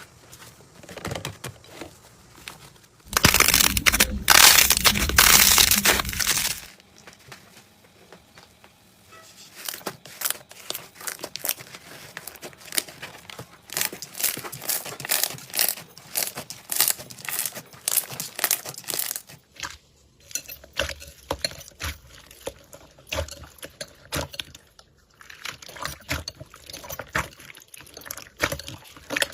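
Slime being squeezed and pressed by hand, giving crackling, crinkling and popping clicks. About three seconds in there is a louder, dense crunching stretch that lasts a few seconds.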